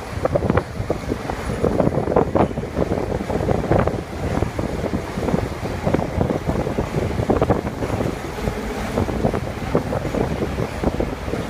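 Wind buffeting the microphone over the rumble of a passing train.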